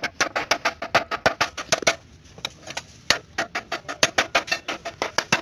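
Rapid hammer blows on sheet metal, about seven sharp taps a second, with a brief pause about two seconds in.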